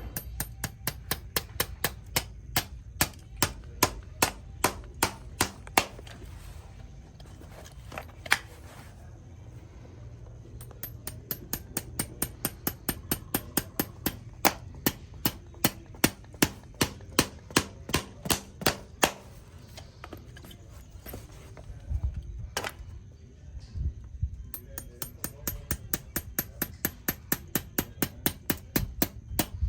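Farrier's hammer tapping in quick, even strokes, about three a second, in runs of several seconds broken by pauses, with one sharper single knock about three-quarters of the way through.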